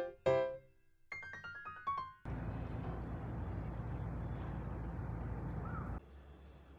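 A short piano jingle whose last notes end about two seconds in. It is followed by a steady, even outdoor background noise, which drops to a much quieter background near the end.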